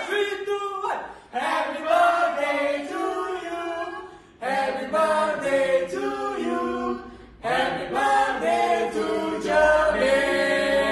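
A small group of people singing together, unaccompanied, in phrases of about three seconds with a short break between each.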